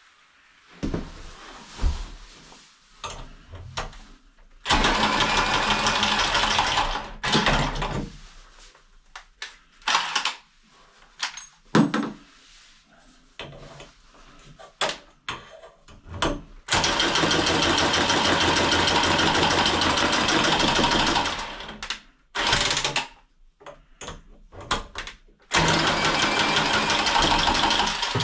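A handheld power tool motor running in four loud, steady bursts of a few seconds each, the longest about four seconds, with small knocks and clicks between the bursts.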